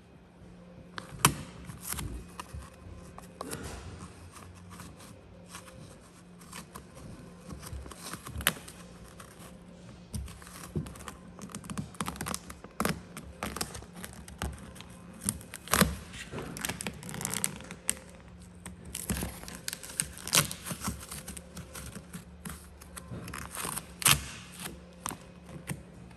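Gloss black vinyl wrap film being worked by hand: irregular crinkling, peeling and scraping with several sharp snaps, over a steady low hum.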